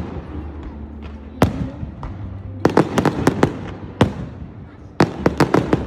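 Aerial firework shells bursting: a single bang, then a quick string of sharp reports, another single bang, and a second rapid string of reports near the end.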